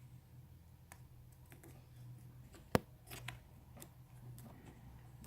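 Small sharp clicks and taps as an iPhone 6's display flex-cable connectors are pressed onto the logic board and snap into place, the click that shows each is seated; one sharper click about halfway through. A faint steady hum runs underneath.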